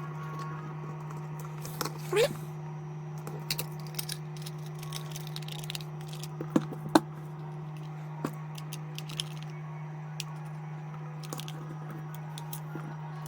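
Scattered clicks and light knocks of tools and small parts being handled and put away on a workbench, with a short rising scrape about two seconds in and two sharper knocks about halfway through, over a steady low hum.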